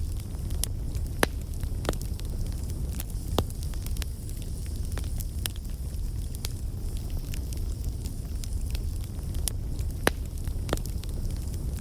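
Campfire burning: a steady low rumble of flames with irregular sharp crackles and pops from the burning wood.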